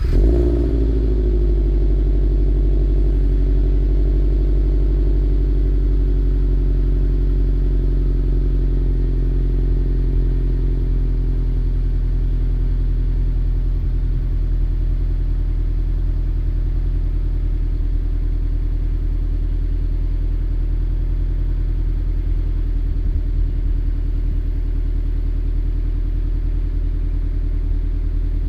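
Subaru BRZ / Toyota 86 flat-four boxer engine, breathing through unequal-length JDL headers and an Invidia Q300 cat-back exhaust, catching on start-up, briefly running faster, then settling within a couple of seconds into a steady idle.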